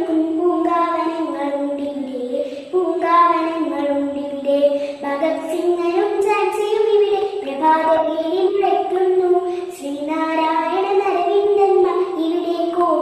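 A young girl singing a song solo, holding long notes in phrases that rise and fall in pitch.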